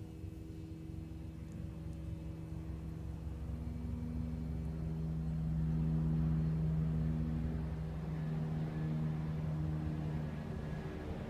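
A steady low mechanical hum with several held tones, swelling louder around the middle and easing off near the end.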